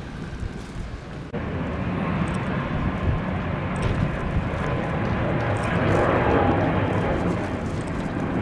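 Jet engines of a Wizz Air Airbus A321 at takeoff thrust as it lifts off and climbs. The sound is a loud, steady rush with a faint whine in it. It cuts in abruptly about a second in and grows louder toward the middle.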